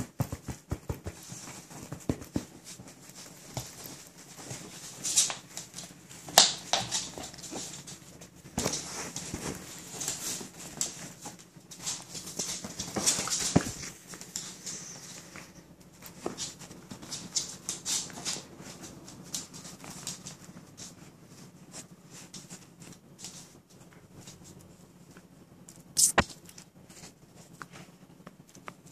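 A Shetland Sheepdog moving and nosing about right against the phone: irregular rustling and scuffling of fur and handling, loudest in two stretches, with a sharp knock about 26 seconds in.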